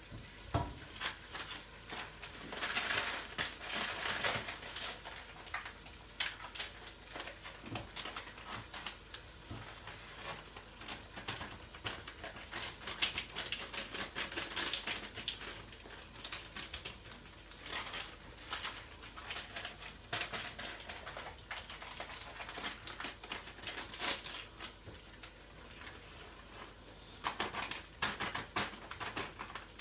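Kitchen work sounds: irregular taps, clicks and short scrapes of utensils and cookware being handled, with some rustling, coming in quick clusters and pausing now and then.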